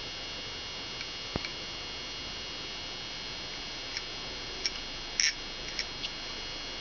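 A few small, scattered clicks and ticks of a craft-knife tip being worked into a hole in a circuit board, over a steady high-pitched background whine.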